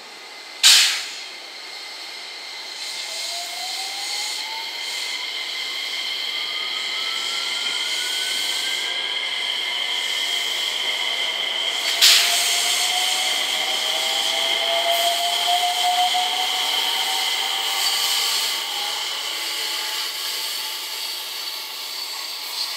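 JR West 227 series electric train pulling away from a standstill: its VVVF inverter gives several rising whines as it accelerates, over a running noise that builds up. Two short, sharp, loud bursts cut in, one about a second in and one about halfway through.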